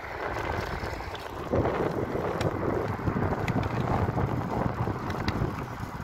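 Wind buffeting the microphone, a rough gusting rush that swells about a second and a half in.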